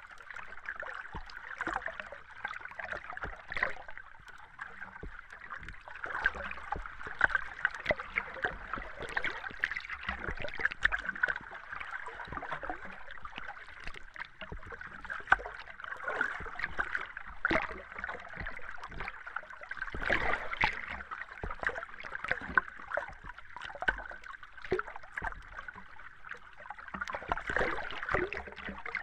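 Underwater ambience with bubbles: a steady watery hiss full of quick, irregular pops and clicks.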